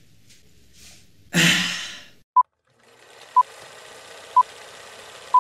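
Film countdown leader sound effect: a short high beep about once a second over a steady hiss. Before the countdown, about a second in, a loud rush of noise dies away in under a second.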